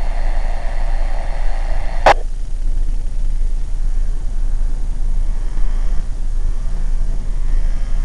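Amateur two-way radio hissing with static on an open channel, cut off by a sharp squelch click about two seconds in. After that a steady low rumble.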